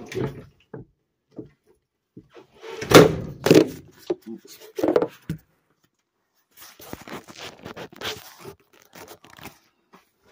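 Irregular knocks, thumps and scrapes, loudest about three seconds in, with a rougher stretch of rubbing and scraping later on.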